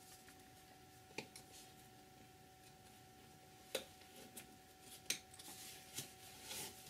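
Near silence with a few faint, sharp clicks and light scratches, the loudest a little past halfway: an X-Acto blade picking tiny air bubbles out of a cast resin model base.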